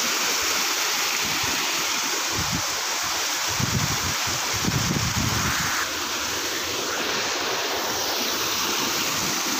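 Steady rush of flowing water from a nearby monsoon stream or waterfall, an even hiss. Low buffeting on the microphone comes twice, a couple of seconds in and again for about two seconds around the middle.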